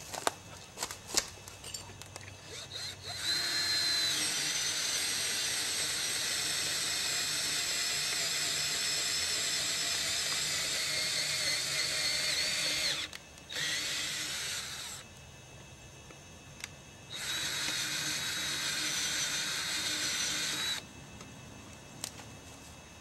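Power drill running under load into the end of a log: a steady high whine for about ten seconds, a short burst, then about four seconds more. A few knocks of handling come before it in the first three seconds.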